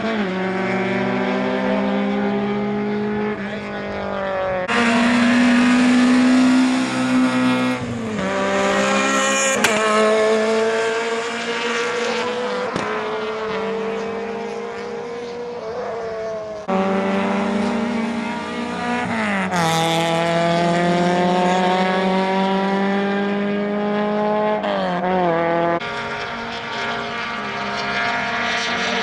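Rally car engines accelerating hard on a circuit, with more than one car passing. Each engine's pitch climbs steadily, then drops sharply at every upshift, about five times.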